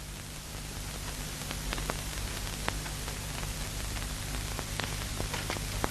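Steady hiss with a low hum beneath it and a few faint, scattered clicks.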